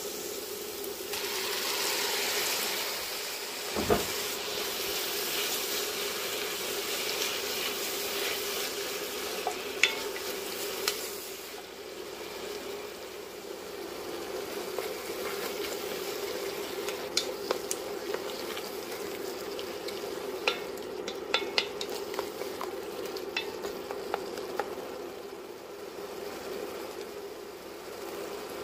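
Chopped tomatoes sizzling in hot butter and onions in an enamelled cast-iron pot, the sizzle loudest in the first ten seconds, with a thump about four seconds in. The frying then settles to a softer steady sizzle, with a spatula stirring and a scatter of sharp clicks against the pot as the tomatoes soften.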